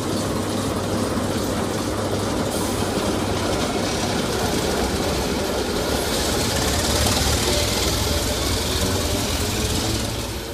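Czech class 749 diesel locomotive 749.121 rolling past at shunting speed with its six-cylinder ČKD diesel engine running, the engine hum under wheel and rail noise. It is loudest about seven seconds in and fades near the end.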